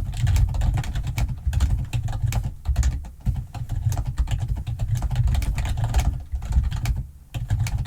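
Rapid, continuous typing on a computer keyboard, dense keystrokes with a short pause about seven seconds in.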